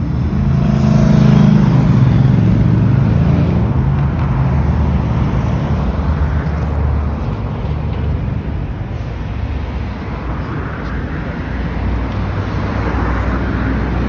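Street traffic: a motor vehicle's engine running close by, loudest in the first few seconds, then a steady low traffic rumble.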